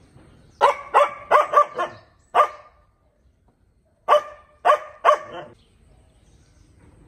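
A dog barking in two bouts: a quick run of about six barks, then three more after a short pause.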